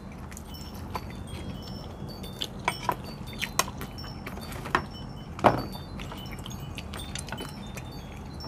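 Wind chimes tinkling in many short, high ringing tones, with sharp clicks of a spoon on plates; the loudest is a single knock about five and a half seconds in.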